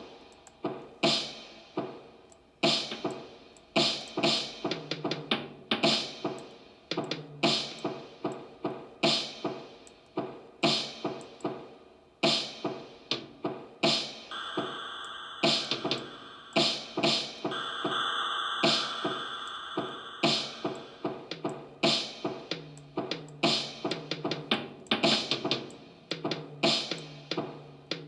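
Electronic music: a drum-machine beat with synthesizer parts. About halfway through, held high synth notes come in for several seconds over the beat.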